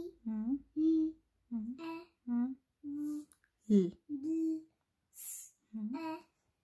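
A young child's voice sounding out words slowly in short, separate syllables, about two a second, as in phonics reading practice. A short hiss comes about three quarters of the way in.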